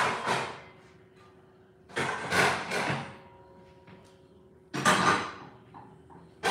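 Cookware and the oven rack being moved about at an open oven: three short sliding, scraping noises about two to three seconds apart.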